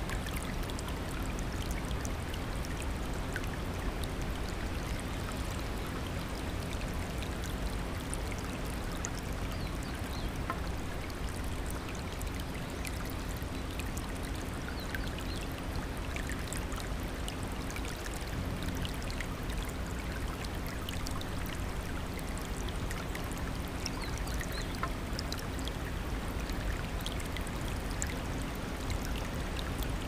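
Shallow rocky stream rushing over stones in small rapids: a steady, even rush of water flecked with tiny splashes.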